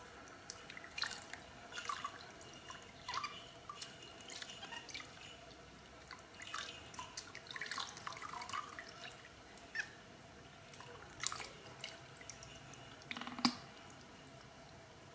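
Water dripping and splashing in a plastic washbasin as a baby monkey is washed by hand, with irregular drips and small splashes.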